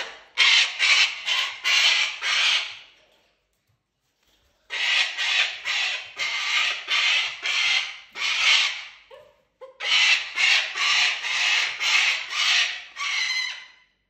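A cockatoo and an eclectus parrot screeching at each other in a territorial squabble. There are three bouts of rapid, harsh squawks, each a run of several calls, with short pauses between the bouts.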